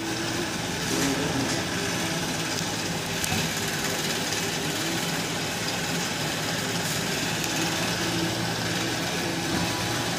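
Electric motor spinning a bicycle robot's heavy gyroscope flywheel through a belt drive: a steady mechanical hum. A few faint clicks come in the first few seconds.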